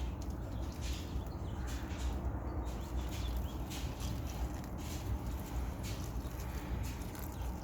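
Steady low rumble of background noise with faint scattered clicks and rustles.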